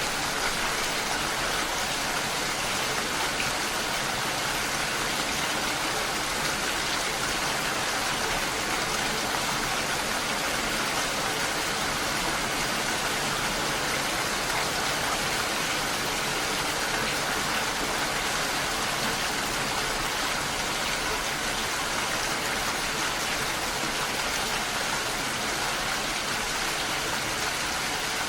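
Steady rain falling: a dense, even hiss with no breaks or distinct drops standing out.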